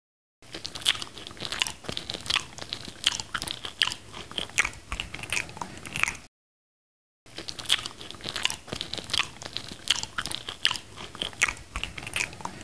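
Close-miked biting and chewing of a ripe mango slice dusted with chilli: a dense run of sharp mouth clicks and smacks. It cuts to dead silence for about a second around the middle, then carries on.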